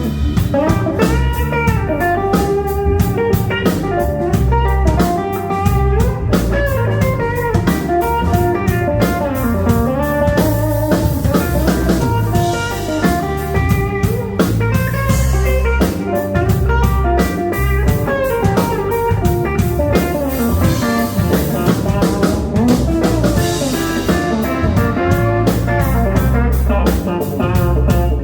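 Band playing an instrumental number: a Telecaster electric guitar plays quick lead lines over bass and a drum kit.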